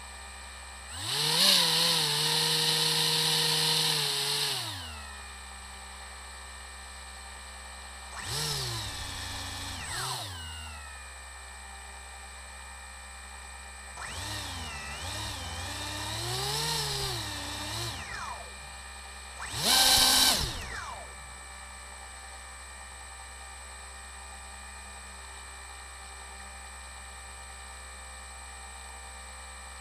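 Salvaged quadcopter motors spinning propellers on a homemade airboat, whining up in pitch in four throttle bursts, each winding back down. The first burst is the longest, the third wavers up and down in pitch, and the last is short and loud. A faint steady hum runs between the bursts.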